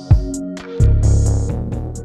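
Instrumental background music with a drum beat, bass and plucked guitar.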